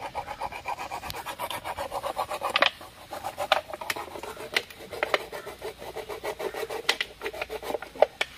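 A small knife sawing through a thin plastic drinking bottle: fast rasping strokes for the first two to three seconds, then a scattering of sharp plastic crackles and clicks as the cut goes on.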